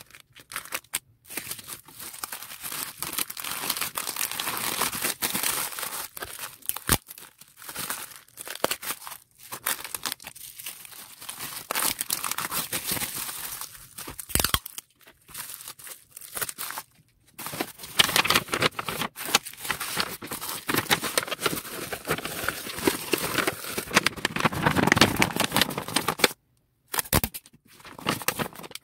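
Plastic packaging bags and bubble wrap crinkling and rustling in uneven bouts as small items are handled and wrapped by hand, with stretches of tearing sounds.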